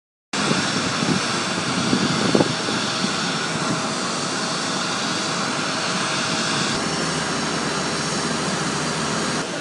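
Steady jet aircraft engine noise with a faint whine in it. Its tone changes abruptly about seven seconds in.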